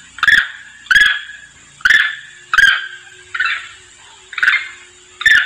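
Macaque calls: a run of about seven short, sharp calls, one roughly every second, used as a lure call in which a monkey calls to its group.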